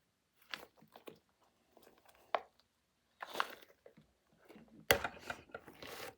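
Handling noises close to the microphone as a squishy toy is squeezed and turned over: short scrunching and rustling sounds, a sharp click a little over two seconds in, and a busier run of rustling near the end.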